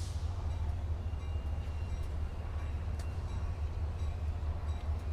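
Diesel locomotive of a Metra commuter train running with a steady low rumble.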